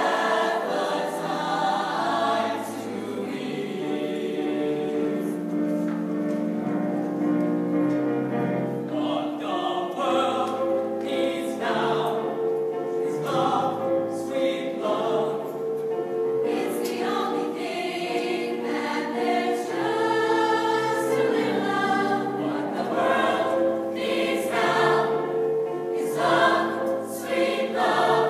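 School choir singing in parts: long held chords at first, then shorter, more rhythmic phrases from about ten seconds in.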